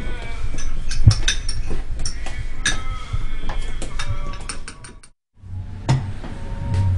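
A run of irregular sharp clicks and knocks over a low rumble. The sound cuts out completely for a moment about five seconds in, then resumes over a steady low hum.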